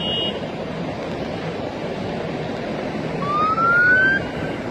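Steady road-traffic noise, with a siren rising in pitch once for about a second, about three seconds in.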